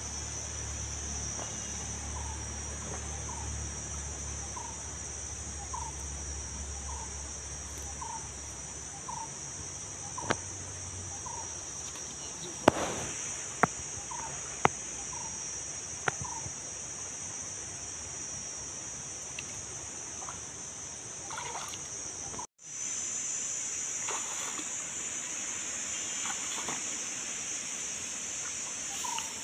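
Steady high insect chorus, cicadas or crickets. Over it, a bird repeats a short call about every 0.7 seconds, in a run near the start and again about halfway through. There are a few sharp knocks in the middle, and the sound drops out for a moment about two-thirds of the way through.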